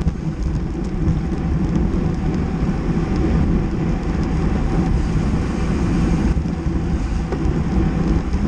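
Wind noise on the microphone of a bicycle-mounted camera riding at race speed: a steady, loud, uneven rumble.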